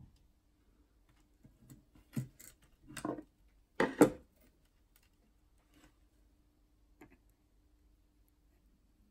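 A few short clicks and scraping sounds of hand tools being handled during soldering work, the loudest two scrapes about three and four seconds in, over a faint steady hum.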